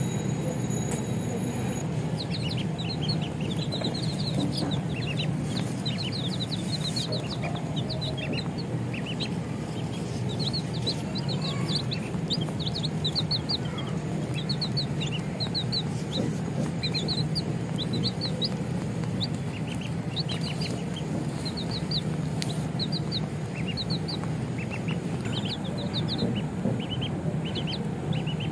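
A group of baby chicks peeping: many short, high, falling peeps, one after another throughout, over a steady low hum.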